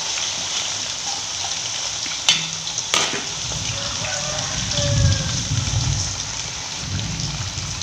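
Cubed potatoes deep-frying in hot oil in an aluminium wok: a steady, rain-like sizzle. Two sharp clicks come about two and three seconds in.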